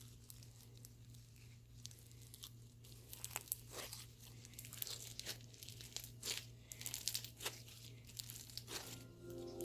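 Homemade floam slime being squeezed and pulled by hand, its foam beads giving faint, irregular crackles and pops. Music fades in near the end.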